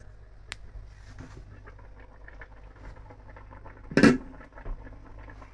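Chicken and water simmering in a lidded pan, with faint crackling and ticking. A sharp click about half a second in and a loud knock about four seconds in.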